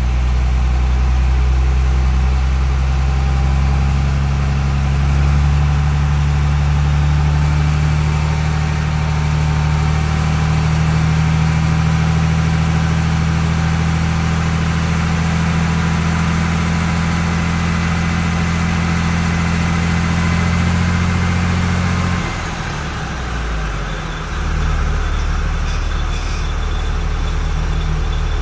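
Iveco truck drivetrain running on the stand during a vibration test: a steady low drone from the diesel engine and the propeller shaft spinning through a Telma retarder. A little after twenty seconds the drone dips and then settles at a lower pitch.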